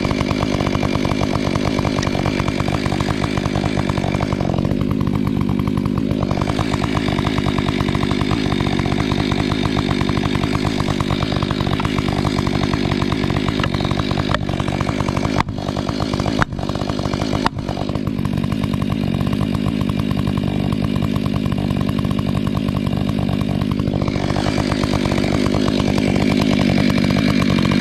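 Stihl 500i two-stroke chainsaw running at full throttle and cutting steadily through wood, with three brief dips in level about halfway through.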